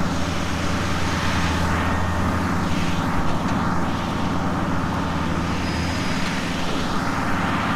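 Tractor engine and Haybuster hay grinder running steadily, a low, even engine drone.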